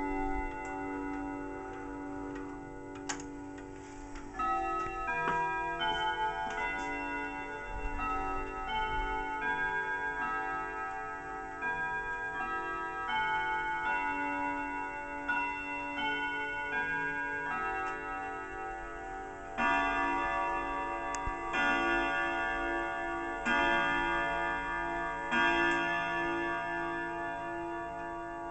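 German triple-chime wall clock chiming: a melody of ringing notes that overlap and sustain, then from about twenty seconds in louder single strokes about two seconds apart, the hour strike, with the clock ticking underneath.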